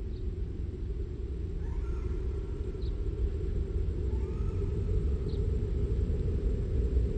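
Steady low rumbling drone, its weight all in the bass, with two faint gliding tones in the middle and a faint high tick every couple of seconds: the ambient drone of a meditative listening track.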